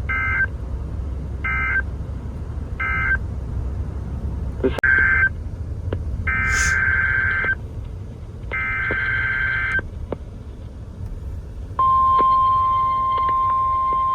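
NOAA Weather Radio SAME data bursts: three short end-of-message bursts closing one warning, then three longer header bursts for the next warning. They are followed about twelve seconds in by the steady 1050 Hz weather radio alert tone. A low hum runs under the bursts.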